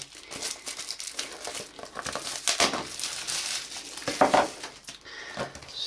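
Packaging on a phone's retail box crinkling and crackling as it is handled and worked open, with a couple of louder crackles partway through.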